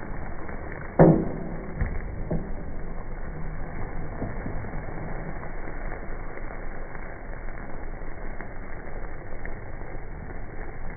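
Chicken masala sizzling in a metal pot as a ladle stirs and scrapes it. About a second in, the ladle knocks against the pot with a short ringing clank, and a lighter knock follows a second later.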